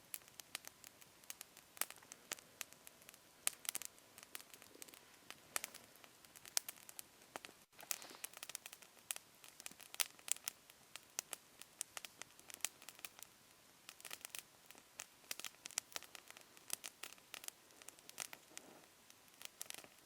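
Small, freshly lit campfire crackling, with frequent irregular sharp pops and snaps.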